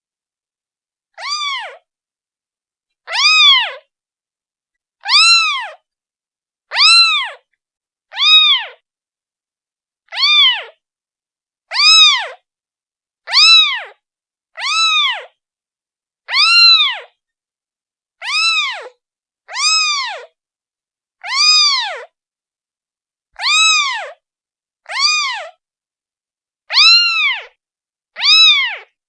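A newborn kitten, one day old, meowing repeatedly to call its mother: about seventeen short, high calls, each rising and then falling in pitch, spaced one to two seconds apart with silence between.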